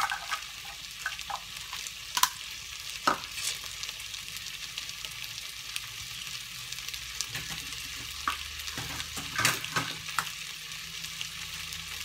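Cubed potatoes sautéing in butter with onion and garlic in a stainless steel saucepan, sizzling steadily, with a few sharp clicks and pops scattered through.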